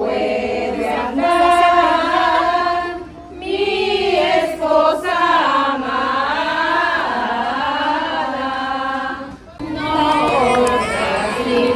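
A group of voices, women and children among them, singing a Christmas song together, breaking off briefly about three seconds in and again near the end.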